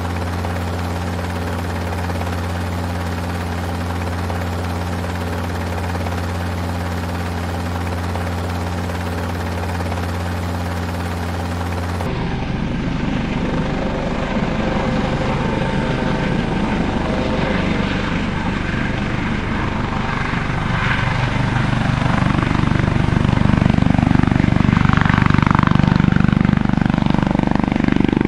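Helicopter rotor and engine sound. It is a steady, even drone for about twelve seconds, then changes abruptly to a rougher, pulsing rotor sound that grows louder toward the end.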